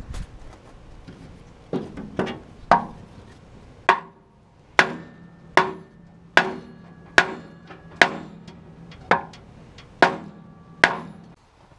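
Hammer blows on a wooden block in the steel bale chamber of a Massey Ferguson No. 12 baler, about a dozen strikes that settle into a steady rhythm of roughly one a second, each with a brief metallic ring. The blows are knocking the baler's plunger back into the chamber.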